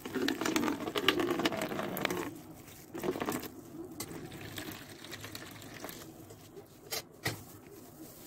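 Water poured from a metal jug into a plastic basin, splashing for about two seconds, then a second short pour about three seconds in. A couple of light knocks near the end.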